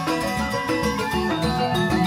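Balinese joged gamelan playing the dance accompaniment: quick, interlocking pitched percussion notes over a steady drum rhythm.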